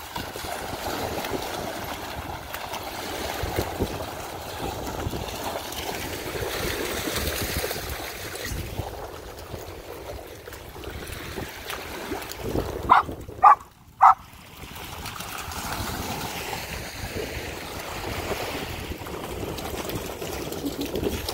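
Steady rushing noise of wind and shallow water on a wet tidal sand flat. About two-thirds of the way through come three short, sharp sounds in quick succession.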